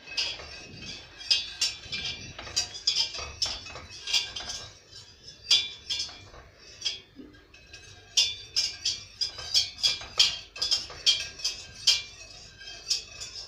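A metal utensil clinking irregularly against the side of a stainless steel pot as pudding is stirred, a few sharp ringing clinks a second, thinning out for a couple of seconds in the middle.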